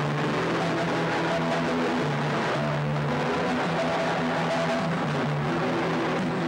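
Live electronic drone-noise music: a low held tone that steps between pitches every second or so, under a steady, dense wash of hiss-like noise.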